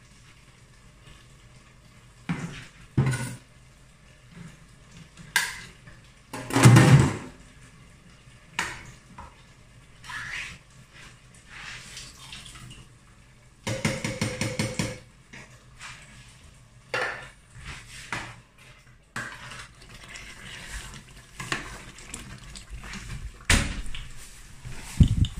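Kitchen handling sounds: scattered clinks and knocks of a small tin and a spoon against a steel cooking pot, the loudest knock about seven seconds in and a short rattle about fourteen seconds in.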